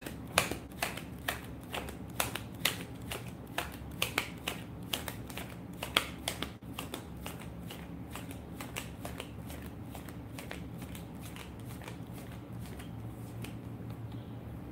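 Tarot cards being shuffled by hand: a rapid run of sharp snaps, densest in the first several seconds and thinning out toward the end, over a low steady hum.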